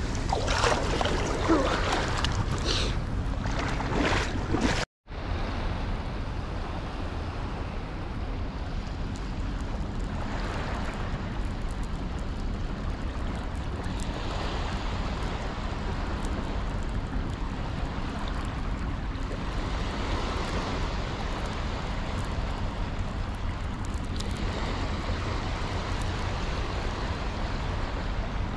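Hands splashing in shallow seawater for the first few seconds, then, after a brief dropout, a steady rush of wind on the microphone with small waves on the shore.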